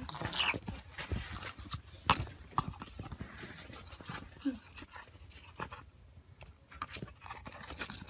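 A blue masked lovebird pushing and pecking at a paper tube on a fabric couch: scattered light scrapes and taps of the tube sliding and being nipped. There is a short, high, falling call about half a second in.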